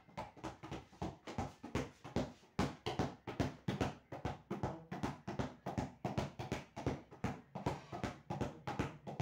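A football dribbled by hand on a hard floor, bouncing in a steady rhythm of about three bounces a second.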